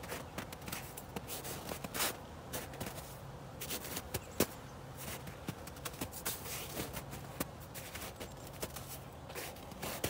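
Footsteps on dry leaves and thawing ground, heard as irregular light crunches and scuffs, over a faint steady low hum.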